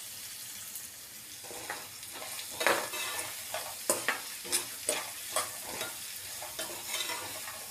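Peanuts, onion and green chillies sizzling in oil in a metal frying pan. From about a second and a half in, a spatula stirs and scrapes the pan in repeated strokes, about two a second.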